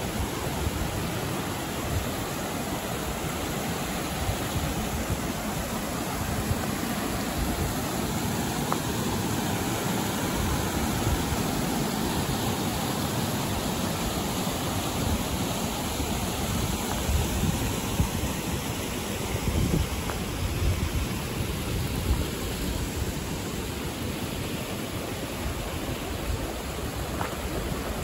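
Steady rushing of a river, with uneven low rumbling of wind buffeting the microphone.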